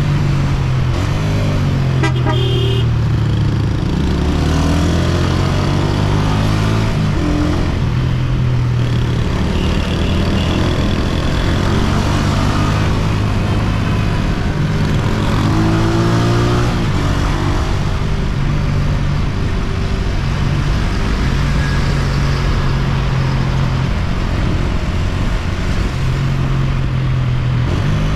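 Honda CG125's single-cylinder four-stroke engine running under way, its pitch stepping up and down with throttle and gear changes, over steady wind and road rush. A vehicle horn toots briefly about two seconds in.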